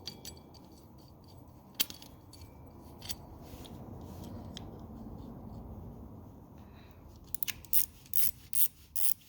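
Small metal parts of a spinning reel clicking and scraping as it is put back together, then from about seven and a half seconds a steady run of sharp clicks, about two or three a second, as the reel's mechanism is worked.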